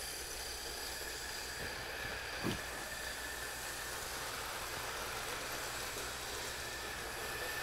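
Tyco HO-scale steam locomotive running with a full string of cars around the track: a faint, steady whir of the electric motor and the wheels rolling on the rails.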